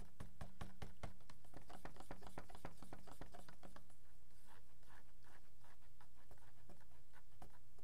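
Wooden stirring stick clicking and scraping against the sides of a plastic cup as white acrylic paint and Floetrol are stirred together. The ticks come fast for the first few seconds, then thin out, over a steady low hum.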